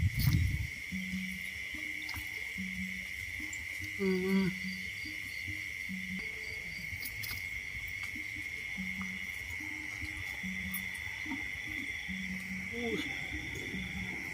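A night insect chorus keeps up a steady high drone, while a short low hoot-like call repeats about once a second. A thump sounds at the very start, and a brief wavering call comes about four seconds in.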